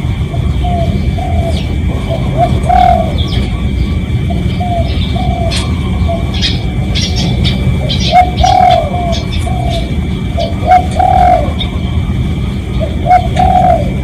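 Spotted dove cooing: repeated phrases of short, low coo notes, strongest in the middle and near the end.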